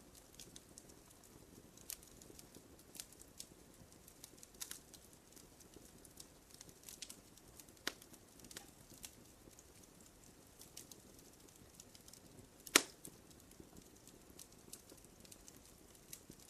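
Wood campfire crackling: many small snaps and pops scattered over a soft steady rustle of the flames, with one loud sharp pop about three-quarters of the way through.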